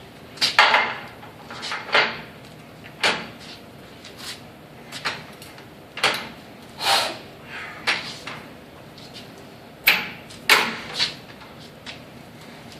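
Irregular metal knocks and clanks, about a dozen spread unevenly over several seconds, some ringing briefly: hand tools, sockets and adapters being handled and fitted onto a large nut while setting up a 500 foot-pound torque.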